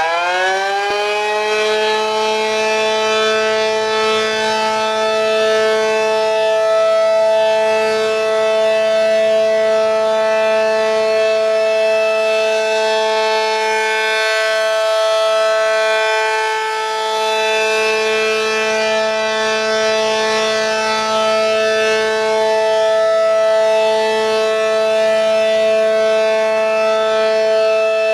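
ACA Penetrator outdoor tornado warning siren sounding a test. It finishes winding up to full pitch in the first second, then holds a loud, steady wail, its loudness wavering slightly.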